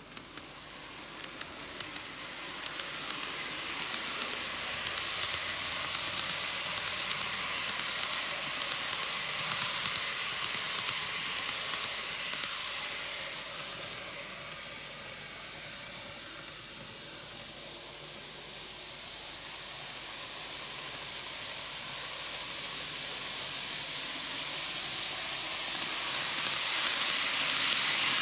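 N-gauge model train (Greenmax Keikyu New 1000 series) running on TOMIX superelevated track: a steady hissing rattle of small wheels on the rails with a fast run of clicks. It is loud as the train passes, quieter about halfway through when the track is empty, and grows again near the end as the train comes back round.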